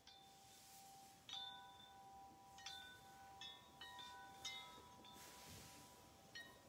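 Wind chime stirred by the breeze: about six soft, irregular strikes, each leaving several clear tones ringing on and overlapping.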